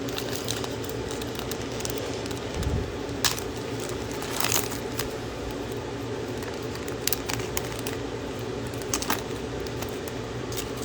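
Scattered light clicks and rustles of trading cards and plastic card holders being handled, with a low thud once, over a steady air-conditioner hum.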